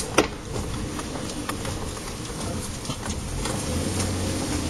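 4x4 running slowly over rough ground, a steady low rumble with scattered knocks and rattles, one sharper knock just after the start.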